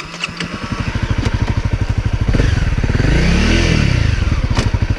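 Honda CRF250L's single-cylinder four-stroke engine running just after being restarted from a stall, getting louder from about a second in. Its revs rise and fall back once around the middle, with a couple of sharp clicks from the bike on the rocky trail.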